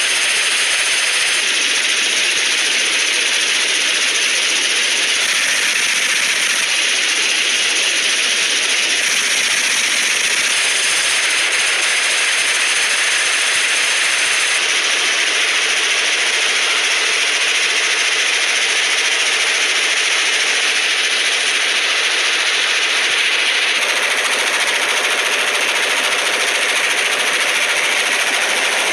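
Suppressed belt-fed light machine gun firing one long continuous burst, its rapid shots running together into a single steady, even sound. The fire is sustained long enough to heat the suppressor until it glows.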